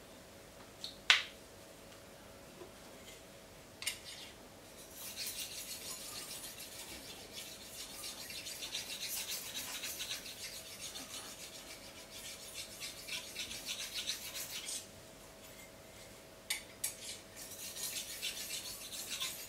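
Polishing stone rubbed along the edge of a large steak knife to polish it: a soft, fine, rapid scraping that starts about five seconds in, stops for a couple of seconds near the end, then resumes. A few sharp clicks come before it, as the stone and blade are taken up.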